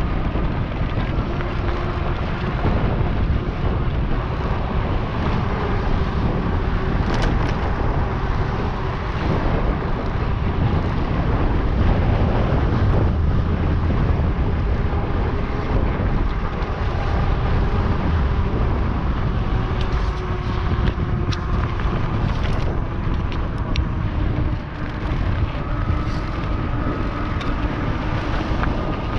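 Wind buffeting the camera microphone during an e-bike ride, with tyre noise and a faint steady whine from the NCM Aspen's electric motor underneath. A few sharp clicks come through about a third of the way in and again past the middle.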